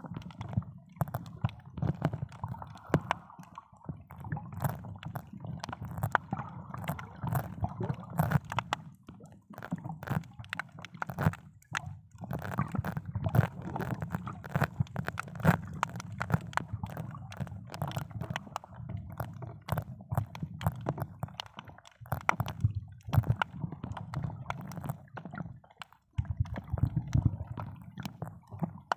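Muffled underwater sound from a submerged camera: water sloshing and gurgling around it, with many scattered crackling clicks throughout.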